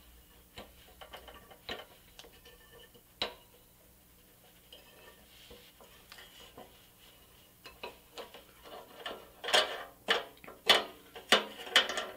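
Metal clicks and scrapes from a Pintonka rivet tool as its T-handle screw is turned to crimp a rivet in a pressed-steel toy truck body. The clicks are faint and scattered at first, then louder and closer together from about nine seconds in.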